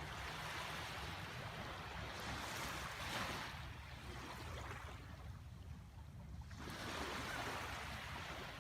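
Rushing water, swelling and fading every few seconds over a steady low rumble.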